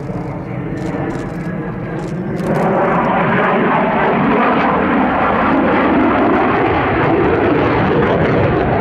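Belgian Air Force F-16 Fighting Falcon's single turbofan jet engine roaring as the jet passes overhead in a display manoeuvre, growing suddenly louder about two and a half seconds in and then holding steady.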